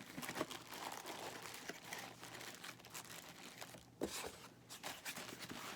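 Packaging rustling and crinkling as items are handled and packed back into a cardboard box, with irregular small clicks and a sharper knock about four seconds in.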